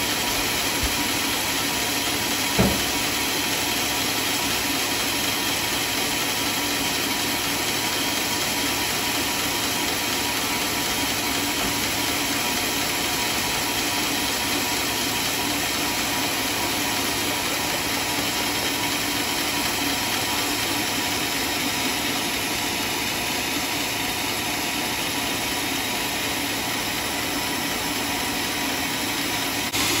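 Homemade band sawmill running steadily without cutting, a constant machine drone with a faint hum. A single sharp knock sounds about two and a half seconds in.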